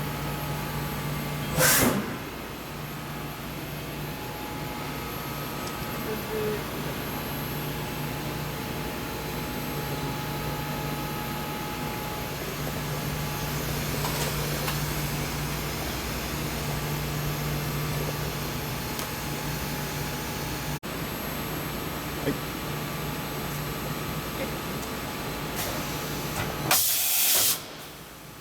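Mori Seiki NV4000DCG vertical machining center running with a steady hum, with a short hiss of compressed air about two seconds in and a longer air blast near the end, after which the hum drops away.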